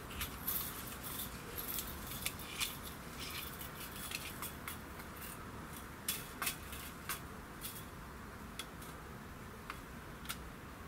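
Small handling clicks and scrapes from a steel tape measure drawn out along a wooden board and a pencil marking the measurement. The clicks are busiest in the first three seconds, then come singly every second or so.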